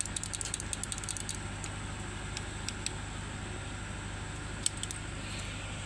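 Short metallic clicks and rattles as a diesel engine's rocker arm is worked back and forth by hand on its rocker shaft, showing play in a rocker bore that has worn loose. The clicks come in a quick cluster at first, then a few scattered ones, over a steady low mechanical hum.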